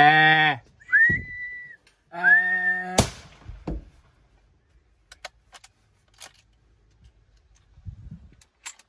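A man's short shout, a held whistle, and a second shout to make the steer lift its head. Then a single rifle shot about three seconds in drops it. A few faint clicks follow.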